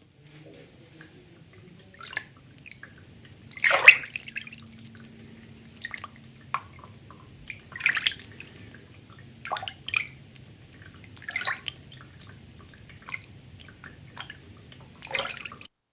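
Foley water splashing and dripping in a sink: a run of irregular small splashes, the loudest about four seconds in, over a low steady hum.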